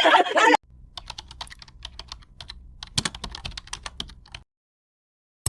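Rapid keyboard typing: a quick, uneven run of sharp key clicks over a faint low hum for about three and a half seconds, stopping abruptly, with one more short click near the end.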